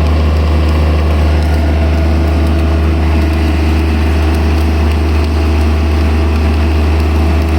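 Water-cooled diesel engine of a welder generator running steadily with an even low hum.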